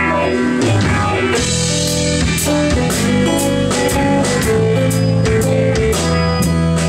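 Live rock band playing an instrumental stretch on guitars and drum kit, with held guitar notes and the drums striking sharply from about a second and a half in.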